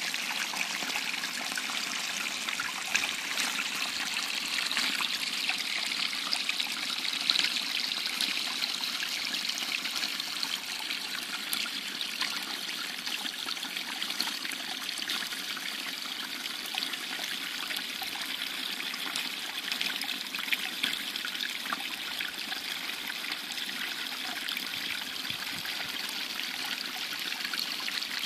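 Small woodland brook trickling and splashing over a little drop between tree roots: a steady babble of running water.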